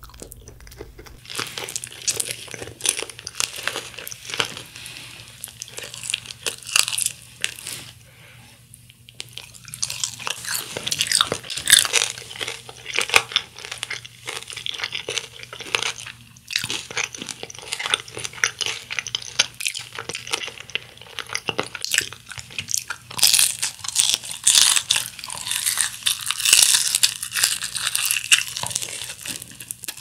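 Crunching bites and chewing of crispy Kyochon Honey Combo fried chicken, one crackly bite after another, with a brief lull about eight seconds in.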